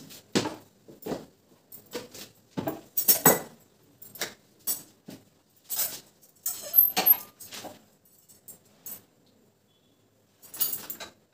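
Steel tongs and kitchen utensils clinking and knocking against a tawa and a steel plate while phulkas are turned and handled: about a dozen irregular metal clinks, one with a brief high ring.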